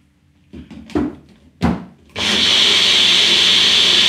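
A few knocks as the upturned cup of a small personal blender is set onto its motor base. About two seconds in, the blender motor starts and runs steadily at full speed, blending a smoothie.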